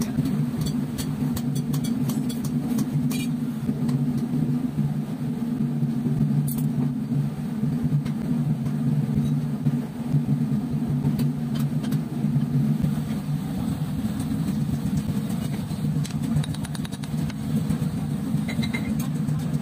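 A steady, low mechanical hum that holds one pitch, with scattered light taps and clicks over the first few seconds.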